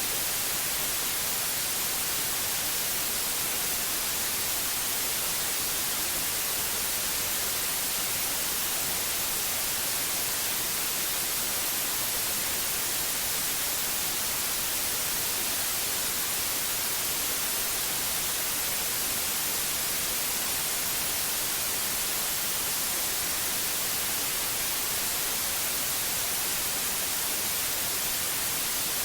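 Steady white noise: an even, unchanging hiss, strongest in the high treble, with no drops, calls or other events in it.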